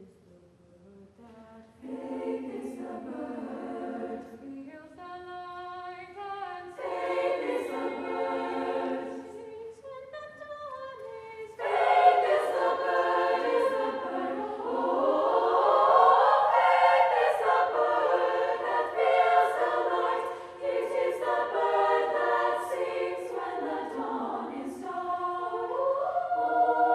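Women's choir singing in harmony. It starts very softly, the voices come in about two seconds in, and the singing swells much louder about halfway through.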